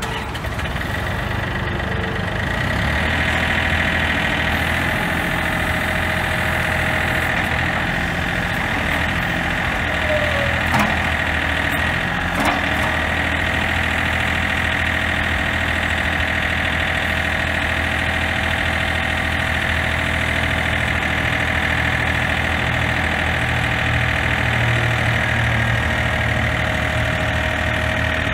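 John Deere 4300 compact tractor's three-cylinder diesel running steadily while the front loader is raised and lowered, with a steady high whine over the engine note. Two brief clicks come near the middle.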